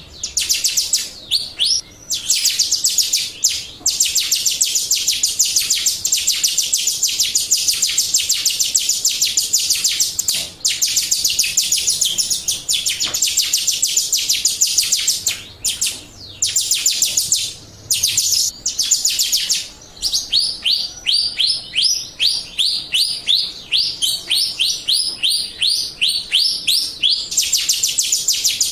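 Jalak Rio bird song played as a lure recording: long, fast trills of high chirps broken by short pauses. Toward the end it changes to a slower series of separate sweeping notes, a few a second.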